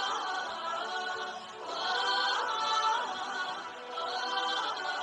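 Recorded song sung by a chorus of voices, in long phrases of about two seconds each.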